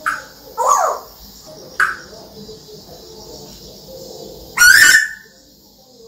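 African grey parrot calling: three short calls in the first two seconds, then one much louder call of about half a second near the five-second mark.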